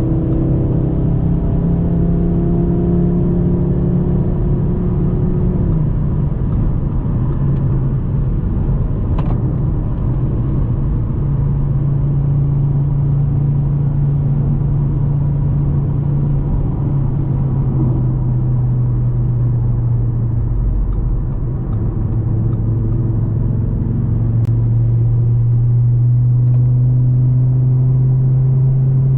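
2024 Audi RS3's turbocharged 2.5-litre five-cylinder engine pulling the car along on the road. Its steady note steps up and down in pitch every few seconds and grows a little louder near the end.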